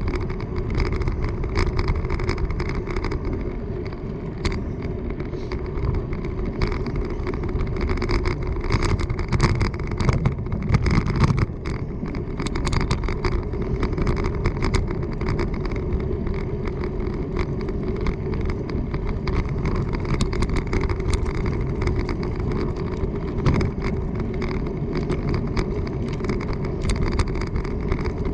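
Steady rumble of a bicycle rolling fast, with frequent small rattles and clicks throughout.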